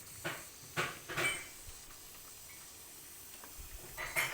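A metal spoon scraping and clinking against a pan as gram flour roasting in ghee is stirred: a quick cluster of three strokes, a pause, then two more near the end, over a faint steady hiss.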